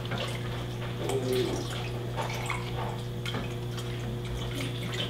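Chicken stock poured from a plastic measuring jug into a saucepan of rice, a steady splashing trickle of liquid with a few light clicks.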